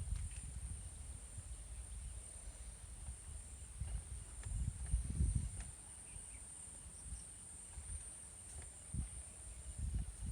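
A steady high-pitched drone of insects, like crickets, with gusts of wind rumbling on the microphone, strongest about five seconds in and again near the end. A few faint bird chirps come in partway through.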